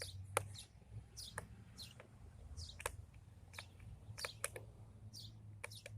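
Scattered sharp clicks and taps of a screwdriver working screws out of a desktop computer case, with short high bird chirps that fall in pitch.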